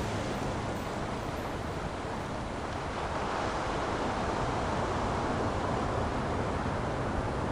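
Ocean waves breaking and washing over shoreline rocks: a steady rushing that swells a little about three seconds in.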